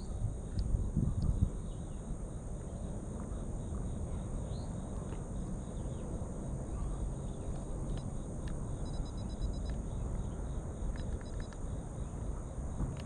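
Outdoor ambience: a steady high-pitched insect drone, with low rumble on the microphone and a few faint chirps.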